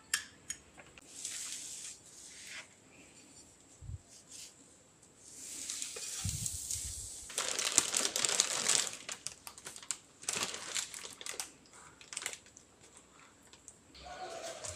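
Plastic bread bag crinkling and rustling as a hand reaches in and pulls out slices, loudest around the middle. Earlier there is lighter scraping of a spoon on a plate, and near the end a short low knock as a wooden chopping board is set down.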